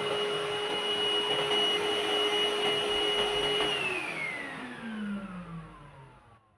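AGARO Regency cordless stick vacuum cleaner running with a steady high whine over airflow hiss, then switched off about three and a half seconds in, its motor whine falling in pitch as it spins down.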